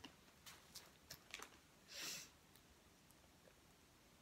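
Near silence: quiet room tone with a few faint ticks and one short, soft breathy puff about two seconds in.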